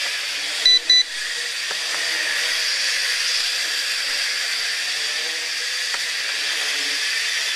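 A Sharper Image DX-4 quadcopter hovering and flying, its four small motors and propellers giving a steady high whine. Two short electronic beeps sound about a second in, the controller's signal of the switch to medium pitch rate.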